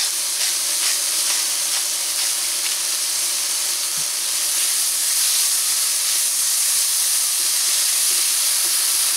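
Sliced onion, garlic and diced tomato sizzling steadily in oil in a stainless steel frying pan, with a few light clicks as a spatula stirs them.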